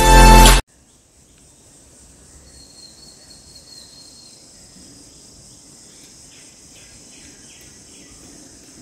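A loud electronic music sting ends abruptly about half a second in. Then comes a faint, steady, high-pitched drone of insects outdoors, with a few weak chirps over it.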